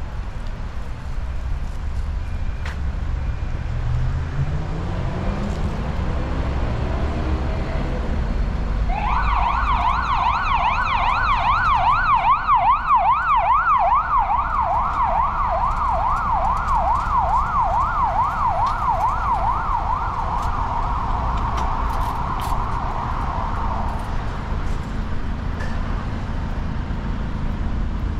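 An emergency vehicle siren in a fast yelp, wailing up and down about three times a second. It starts about a third of the way in and stops about fifteen seconds later, over steady street traffic. A few seconds before it, a vehicle accelerates with a rising engine note.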